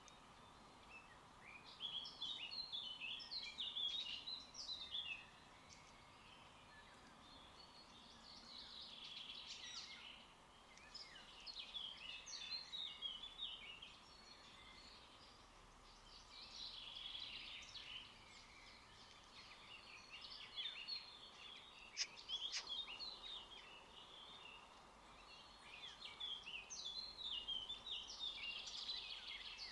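Birds twittering and chirping in repeated bouts of a few seconds each, faint and over a low steady background hum. A single sharp tick sounds about two-thirds of the way through.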